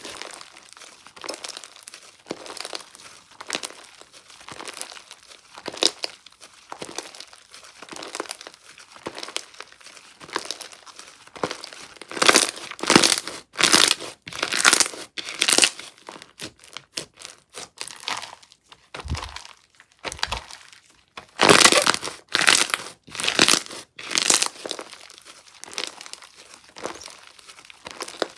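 Slime being squished and stretched by hand, giving a dense, irregular run of crinkly crackles and pops. There are louder spells of crackling about twelve seconds in and again a little past twenty seconds.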